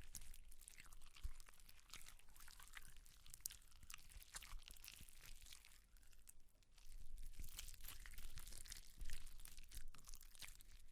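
Gore foley for mutilation or dissection: a run of irregular crackling crunches and tearing, as of flesh and bone being pulled apart. There is a short lull about six seconds in, after which the crunching grows denser.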